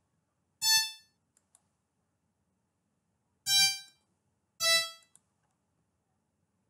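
Three single notes from the violin channel of an FL Studio piano roll, played as note previews: bright tones that each sound briefly and fade within about half a second. One comes about half a second in, then a pair past the middle, each note lower in pitch than the one before.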